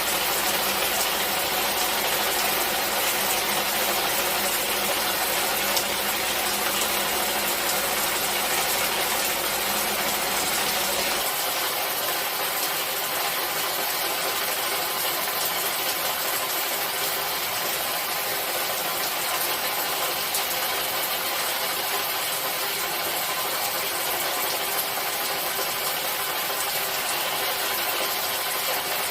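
Steady rain falling: an even hiss with no pauses, its low rumble dropping away about eleven seconds in.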